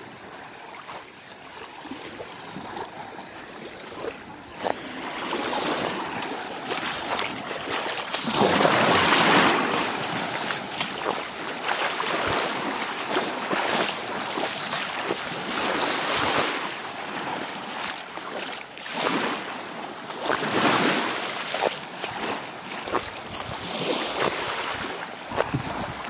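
Small Black Sea waves washing onto a sandy beach and drawing back, the hiss swelling and fading every few seconds, loudest about nine seconds in.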